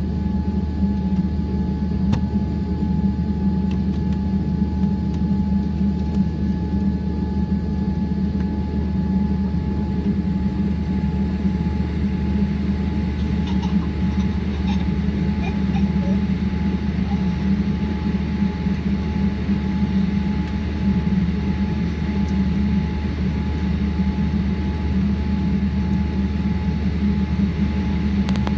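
Steady cabin hum of an airliner on the ground: a constant low drone with a thin steady high tone over it. A few faint clicks about halfway through.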